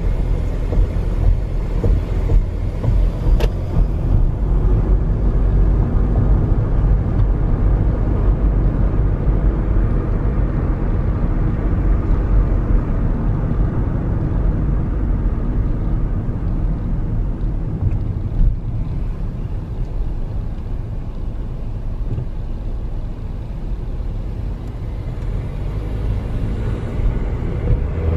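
Steady road and engine noise of a car driving along, heard from inside the car.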